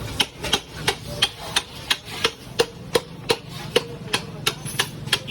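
A hammer striking metal in a steady rhythm, about three ringing blows a second.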